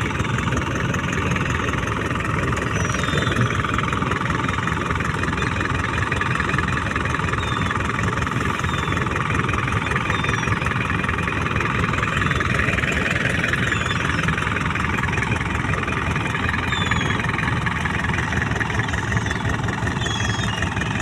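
Fishing boat's engine running steadily at an even pace.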